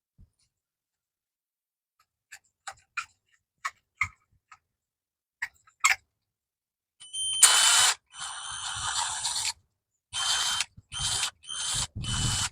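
Tool work on a light fixture: a few light clicks, then several short mechanical bursts, each with a steady high whine in it, the longest about two seconds.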